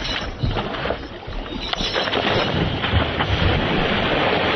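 Wind buffeting the microphone and water rushing past a small moving boat, a steady rushing noise that grows a little denser about two seconds in.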